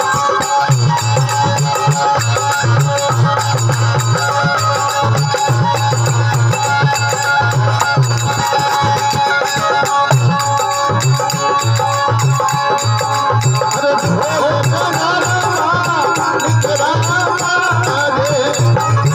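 Rajasthani devotional folk music with a steady hand-drum beat under a melody line.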